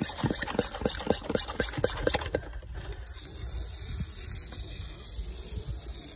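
Hand pump sprayer spraying liquid carpet cleaner onto a car's floor carpet. A run of quick taps and spatters in the first couple of seconds gives way to a steady hiss of spray.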